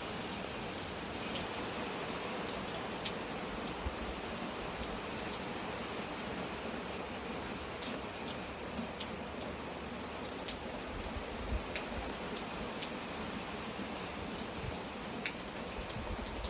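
Steady rain falling, an even hiss with scattered sharp drip ticks of individual drops landing on a surface.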